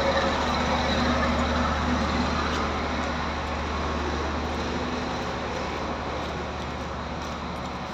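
Engine of a heavy construction vehicle running steadily with a low hum, slowly growing fainter.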